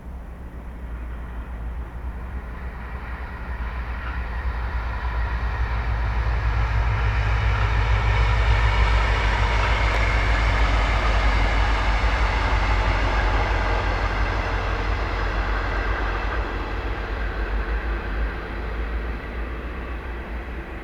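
A train passing by: its rumble and rail noise grow louder to a peak about halfway through, then fade away.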